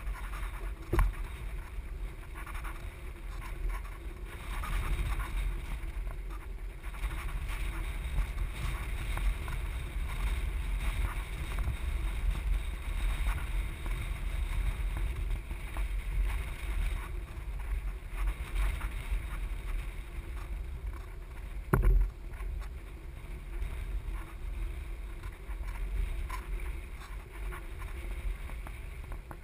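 Wind buffeting the microphone over water splashing against a kayak hull, with a sharp knock about a second in and a louder thump about three-quarters of the way through.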